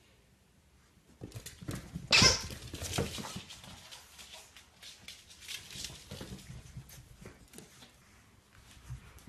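Two French bulldog puppies playing and scrambling on a hardwood floor: a quick patter of claws and scuffles that starts about a second in, with one loud sharp noise just after two seconds.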